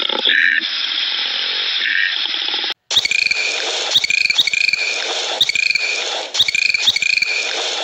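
Bottlenose dolphin whistles and clicking: short chirping, upward-gliding whistles with click trains, repeating about once a second. They come in after a different, steady hissy animal call cuts off suddenly about three seconds in.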